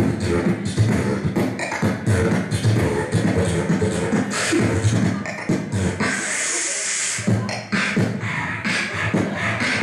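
Beatboxing into a handheld microphone: a quick, steady rhythm of mouth-made kick-drum thumps and snare clicks, with one held hissing cymbal sound of about a second in the middle.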